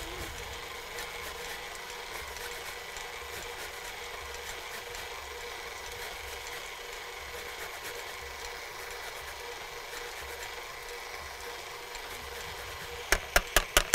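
A lemon being rubbed back and forth on a fine rasp grater to take off the zest, a faint scratching over a steady low hum. Near the end come about five sharp knocks in quick succession.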